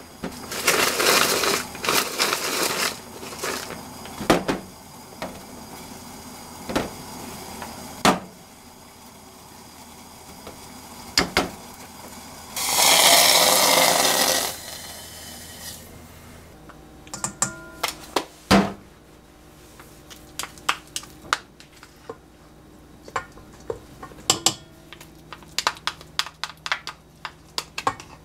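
A hand-operated food chopper whirring in short bursts as it chops rolled oats, followed by a few single clicks. About halfway through, hot water is poured from a kettle onto the oats for about two seconds, then come scattered light taps and clinks of kitchen utensils and containers.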